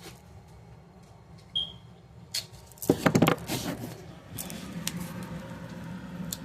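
Rustling and a cluster of sharp clicks as a paper calendar and its packaging are handled, loudest about three seconds in, then lighter handling noises over a low steady hum.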